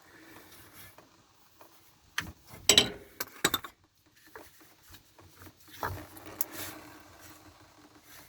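Handling noises while working on a car's oil filter: a few sharp knocks and clicks, loudest a little over two seconds in and again about a second later, with light rubbing and scraping between them.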